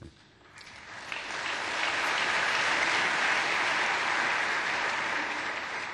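Large seated audience applauding. The clapping swells over the first couple of seconds, holds steady, then starts to die away near the end.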